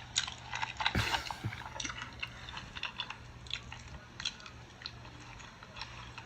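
A woman chewing and smacking loudly with her mouth open as she eats bread: irregular wet smacks and clicks, played back from a recording.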